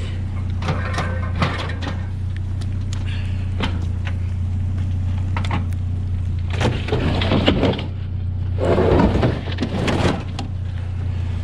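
A vehicle engine running with a steady low hum, under scattered knocks and clatter. Two louder scraping, rustling stretches come about seven and nine seconds in.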